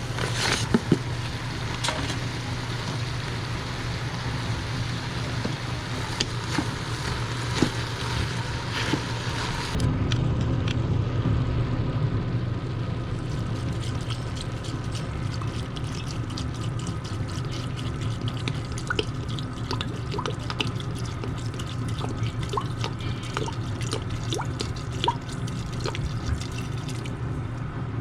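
Kitchen water sounds over a steady low hum: running water for about the first ten seconds, cutting off abruptly, then many small drips and crackles.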